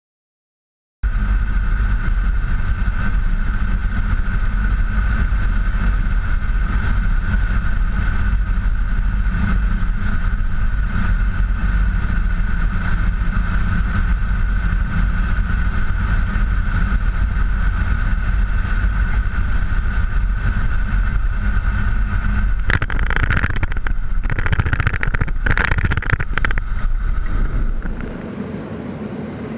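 Four turboprop engines of a C-130 Hercules heard from inside the cockpit on final approach: a loud steady drone with a deep rumble and a steady propeller tone. Near the end the noise turns rougher and surges several times, then drops to a quieter steady rumble.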